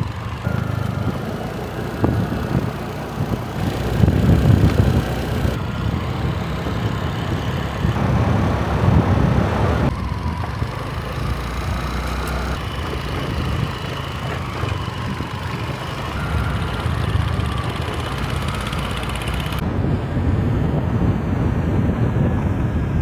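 Motorbike engine running during a ride on a dirt road, a steady low rumble with road and wind noise over it; the sound changes abruptly a few times.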